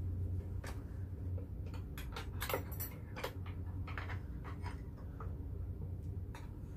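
Metal spoons and chopsticks clinking and scraping against stone pots and bowls during a meal: irregular sharp clicks, clustered about two to three seconds in, over a steady low hum.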